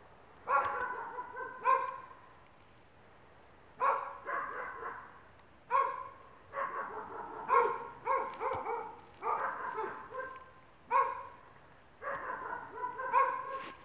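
A dog barking repeatedly, about one bark a second, with a short pause between runs of barks.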